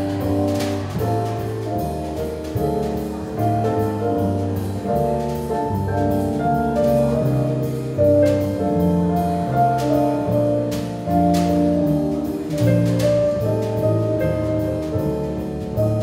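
Instrumental jazz played live by a trio: electric keyboard chords and melody over an electric bass line, with drums keeping time through scattered cymbal and drum strokes.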